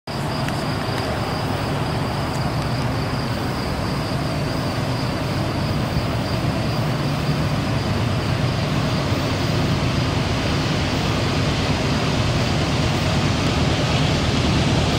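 Steady low noise of an approaching CN train's diesel locomotives heard from a distance, slowly growing louder as the train comes closer.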